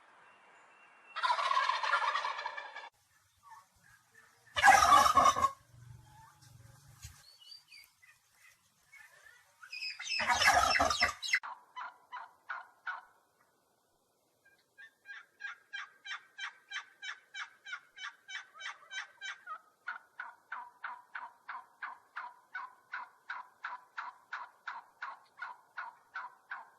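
Domestic turkeys gobbling: three loud gobbles, then a long run of short, evenly repeated calls, about three or four a second.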